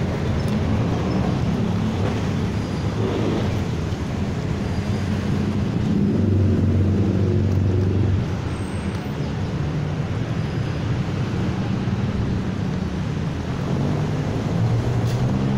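Motor vehicle engine running with a steady low hum, swelling louder for about two seconds midway.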